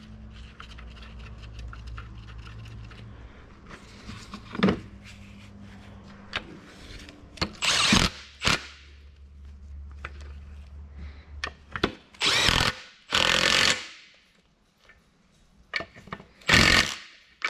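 Cordless impact wrench running bolts down on an Eaton 13-speed transmission's auxiliary section housing, in about five short bursts of hammering. A steady low hum sits underneath for the first two-thirds.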